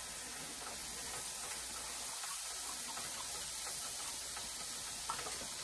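Steady hiss of chicken stock in a hot butter-and-flour roux in a frying pan, as the stock is added to start the sauce.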